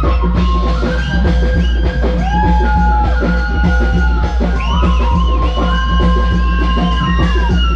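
Live band music at full volume: dense, driving drumming under long held melody notes and a steady deep bass.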